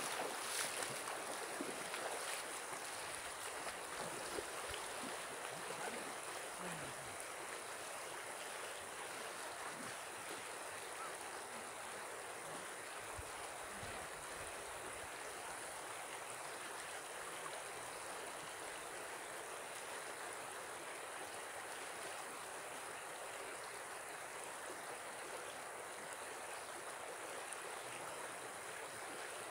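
Shallow river running over its stony bed, a steady rush of water. In the first couple of seconds there is splashing from feet wading through the shallows.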